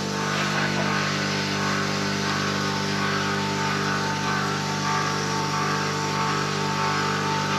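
Powder-coating equipment running steadily: a machine hum with a constant hiss of air as black powder is sprayed onto hot steel brackets.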